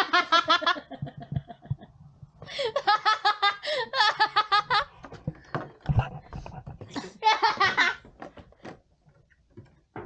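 Laughter in three bursts: at the start, a longer fit from about two and a half seconds in, and a short one near the end. There is a knock of handling about six seconds in.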